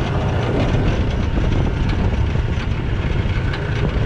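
A large fishing boat's engine running steadily with a low hum, under a constant hiss of wind and water.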